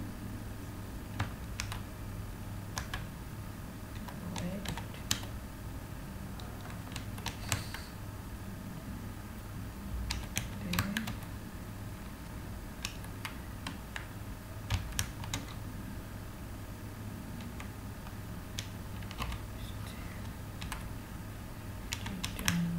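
Typing on a computer keyboard: keystrokes come singly and in short irregular runs, over a steady low hum.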